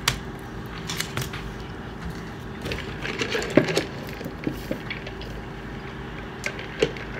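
Drinking through a straw from a plastic tumbler, heard close up: scattered clicks and knocks as the cup is handled, with a busier run of small sips and swallows about three to four seconds in.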